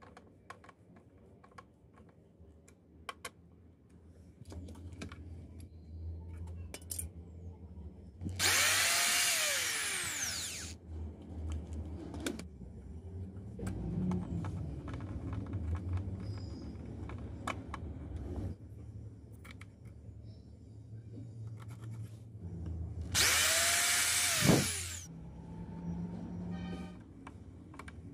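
A small electric motor, like a cordless drill's, runs twice for about two seconds each time, whining up and then winding down as it stops. Between the runs come soft clicks and knocks from screwdriving and from handling the PVC parts.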